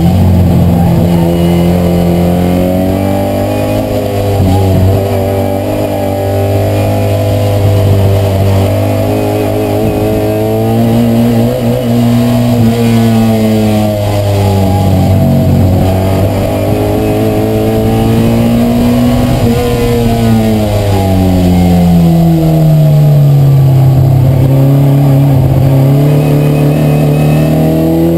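Classic Mini race car's four-cylinder A-series engine, heard from inside the cabin and running hard at racing speed. Its pitch swells and sags as the throttle is fed on and off through the bends, drops to a lower, longer note in the last third and then climbs again.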